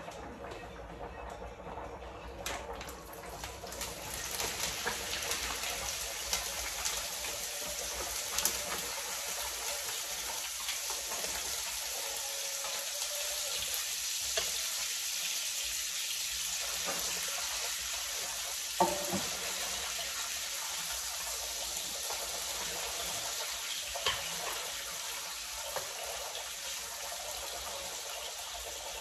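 Lardons (diced bacon) sizzling in oil in a hot frying pan. The hiss starts a few seconds in as they go into the pan and then runs on steadily, with a few knocks of a spatula against the pan.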